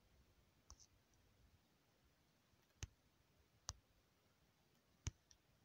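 Sparse sharp taps on a phone's on-screen keyboard: a faint click about a second in, then three louder clicks spaced roughly a second apart, against near silence.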